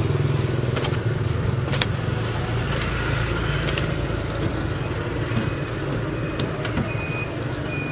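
A motor vehicle engine running steadily close by, a low hum that eases slightly after the first few seconds. A few light clicks, and four short high peeps in the second half.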